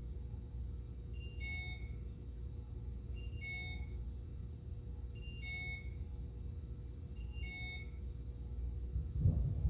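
A short electronic beep pattern, two quick high tones followed by a lower chord, repeating about every two seconds over a low steady rumble. A few thumps come near the end.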